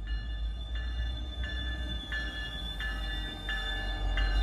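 EMD GP40MC diesel locomotive approaching at low speed, its engine rumble growing louder. Over it a road-crossing warning bell rings about once every 0.7 s.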